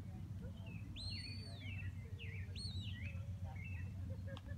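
A few separate high whistled notes, each rising and then falling in pitch, the longest held for over half a second, over a steady low rumble.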